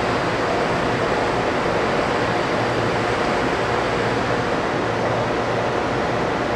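Steady hiss with a faint low hum, the even background noise of machinery running in a train depot shed, with no change throughout.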